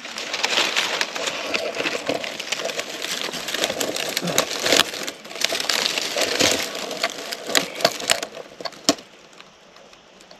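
Footsteps crunching and crackling on dry, stony ground, dying down to a few scattered clicks about eight seconds in.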